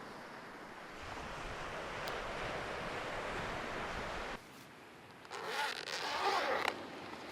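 Ocean surf washing on a beach, with wind. It cuts off abruptly about four seconds in, and a louder, short rush of noise follows near the end.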